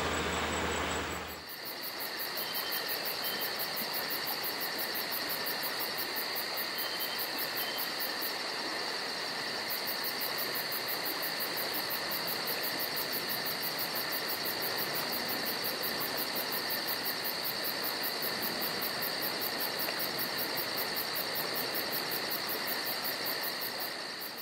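A noisier sound with a low hum stops abruptly about a second and a half in. It gives way to a steady insect chorus, a shrill high drone that pulses rapidly and evenly.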